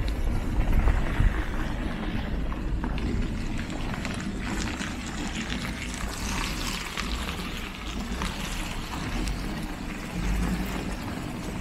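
Outdoor street noise while walking on wet, slushy pavement: a low, uneven rumble with footsteps and faint splashy noise.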